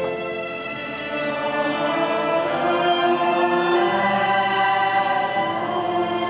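Youth symphony orchestra playing, its strings holding long sustained chords.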